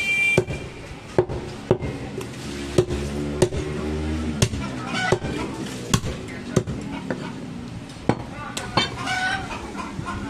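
Heavy cleaver chopping goat meat and bone on a wooden stump chopping block: sharp, irregular thuds, about one or two a second. Chickens cluck and voices carry in the background.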